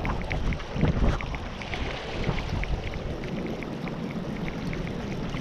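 Spinning reel being cranked to retrieve line, giving a quick, even ticking of about four or five ticks a second, over wind rumbling on the microphone.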